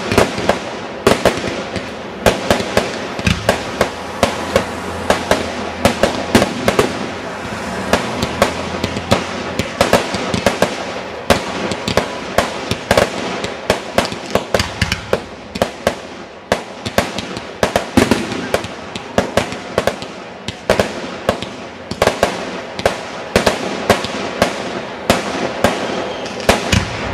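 Aerial fireworks shells bursting in a continuous barrage: sharp bangs and crackles, several a second, over a steady rumble of overlapping reports.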